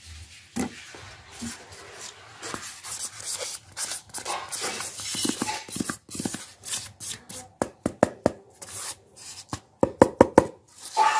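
Hands rubbing and handling a polystyrene foam cutout against cardboard: scratchy rubbing with many sharp taps and clicks, in quick runs in the second half.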